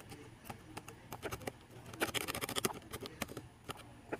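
Laptop touchpad and keyboard clicks: scattered single clicks, with a quick run of clicking about two seconds in.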